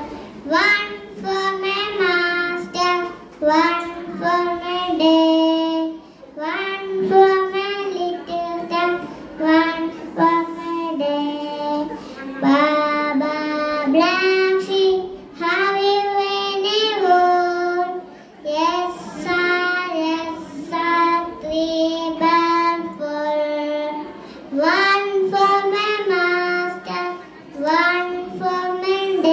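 A young girl singing a song solo into a microphone, in sung phrases with held notes and short breaths between them.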